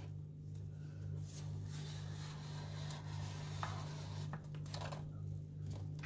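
Faint scraping and light ticks of a thin knife drawn around the inside of a stainless steel cake ring to loosen the cake, over a steady low hum.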